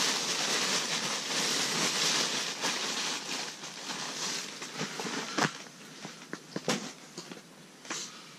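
Rustling and scraping close to the microphone for about four seconds, then a string of sharp clicks and knocks.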